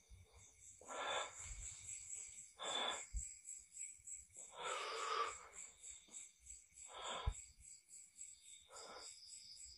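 A person breathing heavily close to the microphone: five loud breaths about two seconds apart, the middle one longest.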